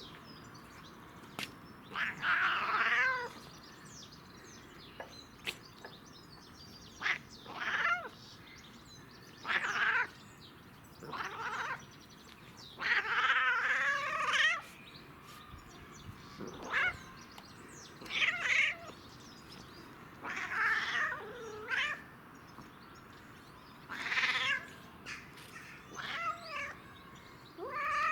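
Domestic cat, high on catnip, giving about a dozen drawn-out, wavering yowls and meows, each a second or so long with short pauses between them.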